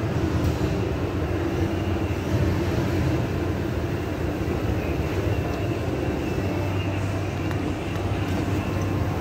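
SJEC FES escalator running down: a steady low mechanical drone and hum from its drive and moving steps.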